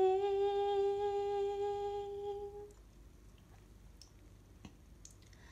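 A singer's voice, unaccompanied, holding one long steady note at the end of a sung line, fading out after about two and a half seconds. Then it is near quiet, with a few faint clicks.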